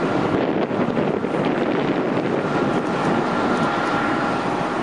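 Wind rushing over the microphone above a steady rumble of airport apron noise. From about halfway through, a faint steady high whine joins it.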